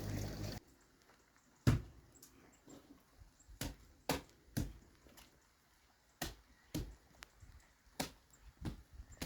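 A hand tool snapping and chopping through roots in the soil: about a dozen short, sharp snaps that come irregularly, often in pairs about half a second apart. Before them, a brief stretch of steady noise cuts off about half a second in.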